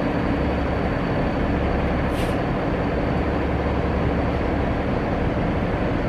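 Steady low rumbling background noise, even in level throughout, with a brief faint high-pitched sound about two seconds in.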